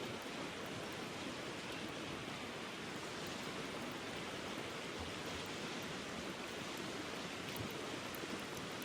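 Stream water flowing steadily, a continuous even rush with no change.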